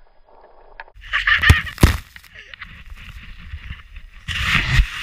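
Skiing through deep powder with wind buffeting the microphone: a rushing hiss over a low rumble that starts about a second in, two sharp thumps a moment later, and the rush coming back louder near the end.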